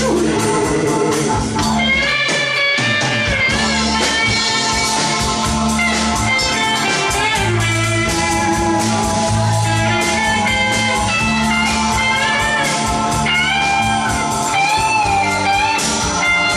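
Live rock band playing an instrumental passage: electric guitar lead with bent, sliding notes over bass, drum kit and keyboard.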